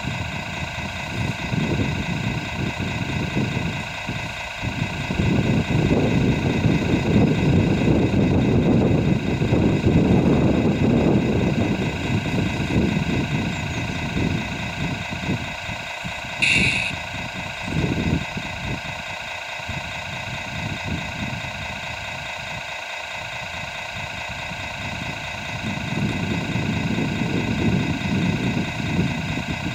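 Radio-controlled model dump truck running with a steady engine-like idle hum, the low rumble swelling for several seconds as it reverses into place beside the excavator. A short high chirp sounds once about two-thirds of the way in.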